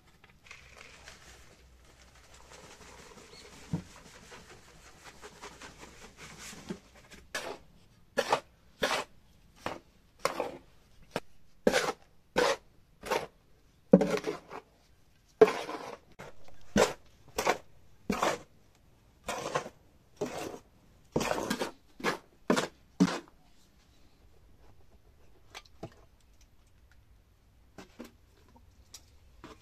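Dry powder (wood ash) pouring into a mixing tub with a soft hiss, then about twenty short scraping strokes in quick succession as the dry earth, sand, cement and ash mix is stirred in the tub. The strokes stop a few seconds before the end.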